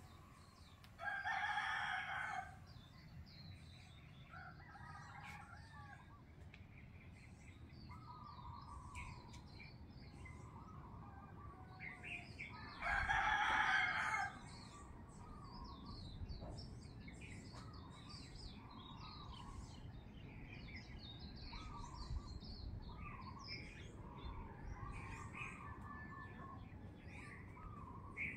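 A rooster crows loudly twice, about a second in and again about 13 seconds in, while small birds chirp throughout, over a low rumble.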